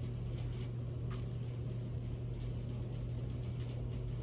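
Steady low hum with a few faint, short clicks over it.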